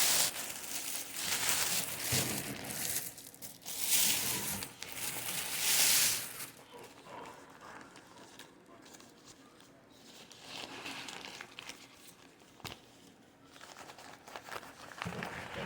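Paper sandwich wrapper crinkling and tearing as a sub is unwrapped, in loud bursts through the first six seconds, then only faint rustling.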